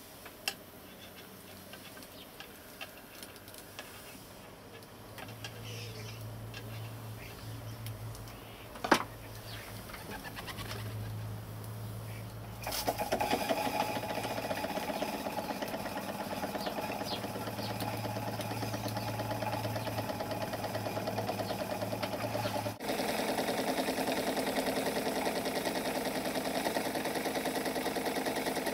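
Handmade model saddle steam engine on its first run after an overhaul: faint ticks and a sharp click, then about a third of the way in it starts running with a fast, even beat that gets louder about three quarters of the way through. A low hum comes and goes before that step.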